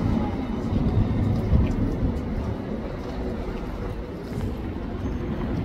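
Steady low rumble of city street traffic, with a West Midlands Metro tram rolling slowly along its street track.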